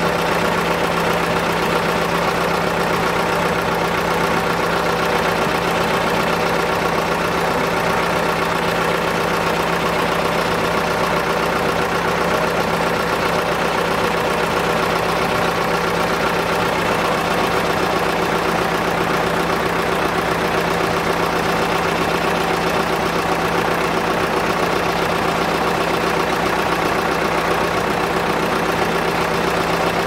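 Engine powering a circular sawmill running steadily at a constant speed, a continuous even hum with no change in load.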